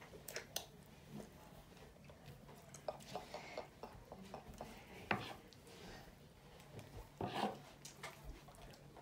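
Quiet table sounds of food being handled: scattered faint clicks and crackles of taco shells, nacho chips and a spoon. There is a sharper click about five seconds in and a brief louder rustle about seven seconds in.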